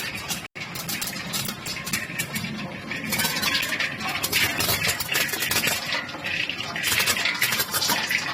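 Camellia seeds rattling and clattering through a running colour sorter machine, a dense stream of rapid sharp clicks, cutting out for an instant about half a second in.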